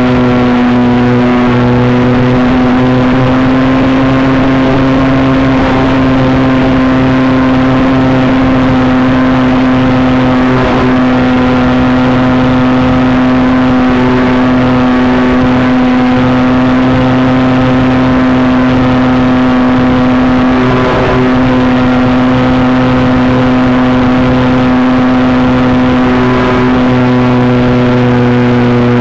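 Model Cessna airplane's motor and propeller running at steady cruise power, a loud, even drone of nearly constant pitch with a light rush of air, picked up close by the onboard camera. The pitch dips slightly a couple of times.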